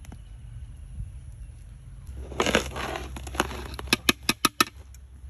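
Cooked biryani rice being scooped and turned over with a ladle in a large aluminium pot: a dry rustling scrape of rice about two seconds in, then a quick series of sharp knocks of the ladle against the pot.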